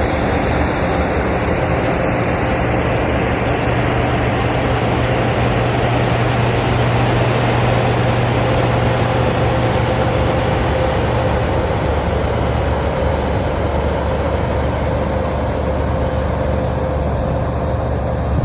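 Harvest machinery running steadily, a continuous heavy engine drone with a steady whine over it.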